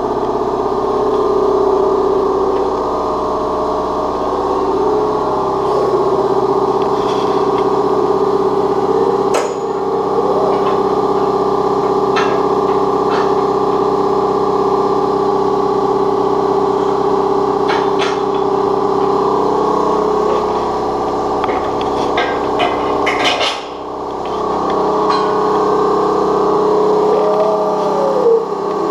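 Air-over-hydraulic ram and its air supply running with a steady mechanical hum, pushing up the leaf of a homemade sheet metal brake to bend aluminium. A few light metallic clicks come through, and the hum dips briefly about 23 seconds in.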